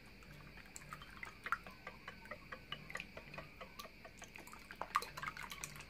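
Eggs being beaten by hand in a bowl: faint, quick, irregular clicks of the utensil against the bowl, with a little liquid sloshing.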